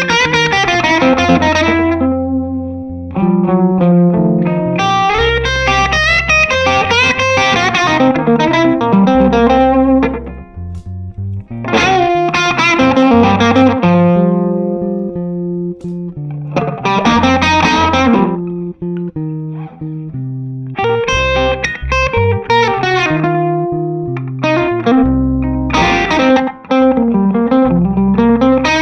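1961 Gibson ES-335 electric guitar with PAF humbuckers played in blues phrases through an overdrive pedal, both sides on, and a short, quick delay. Several phrases with short gaps between them, some notes bent down and back up.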